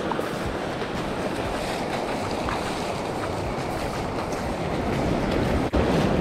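Shallow ocean surf washing over sand in a steady rush, with wind on the microphone. The sound drops out for an instant near the end.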